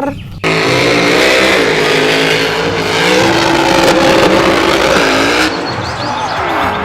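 Car engine revving with tyres screeching, a loud race-car sound effect. It drops to a quieter rush about five and a half seconds in.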